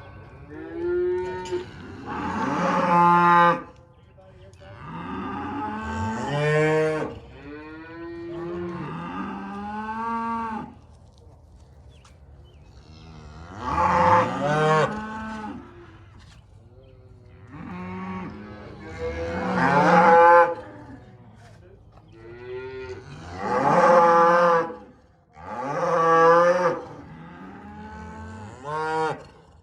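Cattle mooing over and over, about eight long, loud calls with pitch sliding up and down and short pauses between them.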